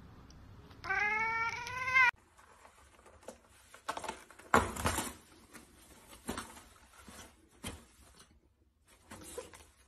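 A cat gives one loud meow lasting about a second, with a slightly rising pitch. It cuts off abruptly, and scattered paper rustling and soft knocks follow as a kitten claws at and unrolls a toilet paper roll.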